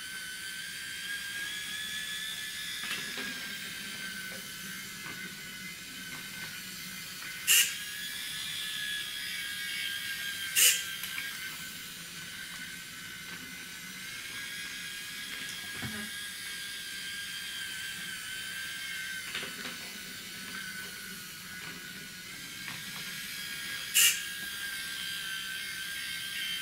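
A battery-powered toy train's small electric motor runs with a steady high whine that wavers slightly as it circles the wooden track. Hobby servos lower and raise the level-crossing barriers in three short, loud whirs: two about three seconds apart a third of the way in, and one near the end.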